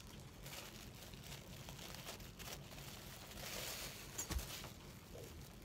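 Plastic parcel packaging crinkling and rustling faintly as it is handled and pulled open, with a louder rustle about three and a half seconds in and a soft thump just after four seconds.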